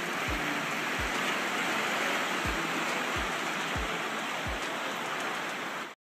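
Steady rush of churning muddy water, with six short, deep thuds that drop in pitch spaced through it. All of it cuts off suddenly just before the end.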